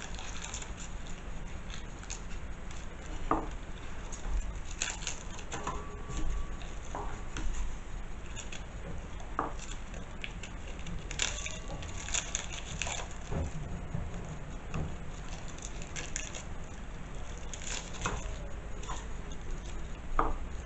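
Garlic cloves being peeled by hand over a small stainless-steel bowl. The papery skins crackle and rustle, with scattered light clicks and taps as cloves and skins are handled against the bowl and board.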